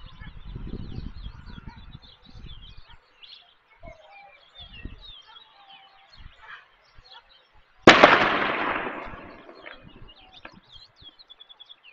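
Small birds chirping and twittering, with a low rumble in the first two seconds. About eight seconds in comes a single sudden loud bang that rings out and fades over about two seconds.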